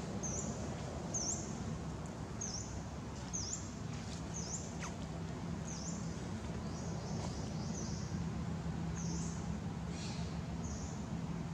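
A small bird calling: short, high chirps, each dipping then rising in pitch, repeated about once a second, over a steady low rumble with a faint hum.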